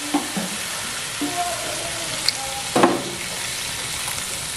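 Mutton pieces sizzling steadily in hot oil in an aluminium pressure cooker, with a few short knocks and clinks, the loudest about three seconds in. Near the end, water is poured in from a cup.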